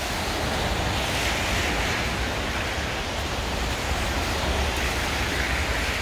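Steady city street noise on a snowy avenue: a low rumble under a hiss that swells about a second in and again near the end.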